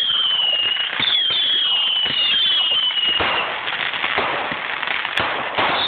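Whistling fireworks going up one after another: shrill whistles, each falling slightly in pitch over about a second and some overlapping, over crackling and scattered pops, with a louder burst about three seconds in.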